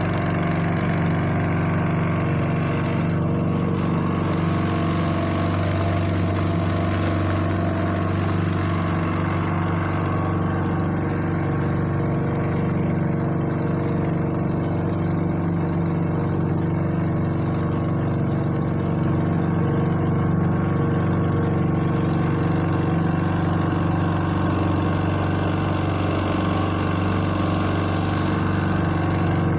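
Engine of a small wooden motorboat running steadily at an unchanging pitch.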